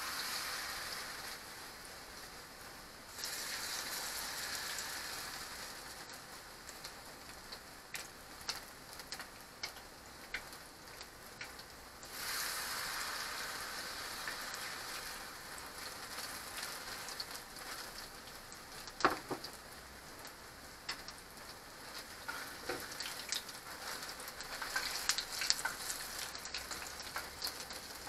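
Battered Korean melon peel strips frying in oil in a frying pan: a steady crackling sizzle that swells at the start, about three seconds in and about twelve seconds in as fresh battered pieces go into the oil. Scattered sharp clicks of metal tongs against the pan, the loudest about two-thirds of the way through.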